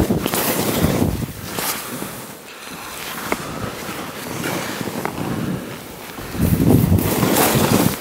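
Skis hissing through snow during a downhill run, with wind rushing over the microphone. Louder in the first second and again over the last two seconds, quieter in between.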